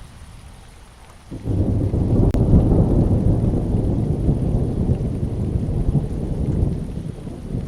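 Steady rain with a roll of thunder that breaks in suddenly about a second and a half in and keeps rumbling low and loud, easing a little near the end.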